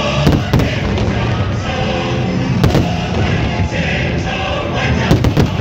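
Fireworks display bursting over loud choral music: sharp bangs twice near the start, once a little past halfway, and a quick cluster of several near the end, with crackle between them.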